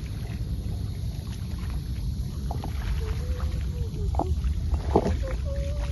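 Steady low rumble of wind buffeting the microphone, with a single sharp tap about five seconds in.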